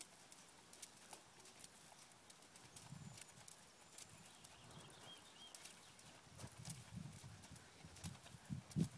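Hoofbeats of a three-year-old American Quarter Horse mare moving over arena sand: faint, dull, uneven thuds that grow louder in the second half.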